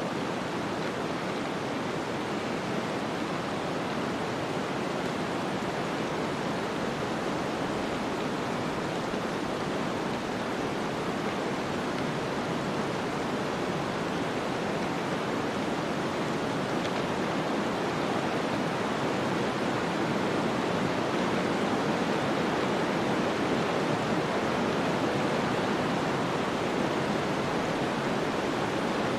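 Snowstorm ambience: a steady, even rush of wind-driven snow, growing slightly louder in the second half.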